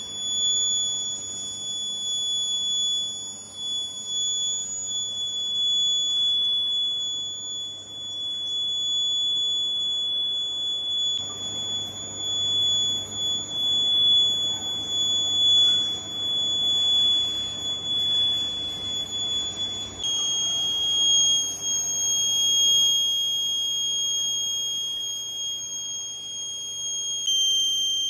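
Lathe cutting tool squealing against a spinning metal roller during a turning cut: a steady high-pitched whistle over the low hum of the machine. The pitch drops slightly about two-thirds of the way through and again near the end.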